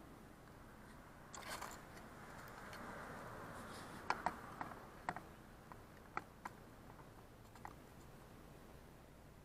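Rustle of the side camera being handled and set down, then a string of about eight sharp, light clicks spread over a few seconds, loudest around four to five seconds in.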